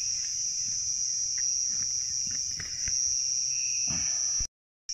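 A chorus of night insects keeps up a steady high-pitched trill, with a few light clicks and knocks of camp gear being handled. The sound cuts out to silence for a moment near the end.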